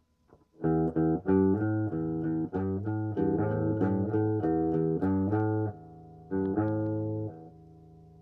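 Electric guitar strumming chords through an amplifier and a DigiTech Time Machine rack delay set to echo mode. It starts about half a second in with rhythmic strums, pauses briefly, then one more chord rings out and fades near the end.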